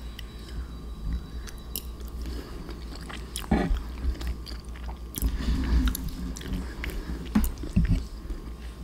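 A person chewing a mouthful of mac and cheese, with irregular small mouth clicks.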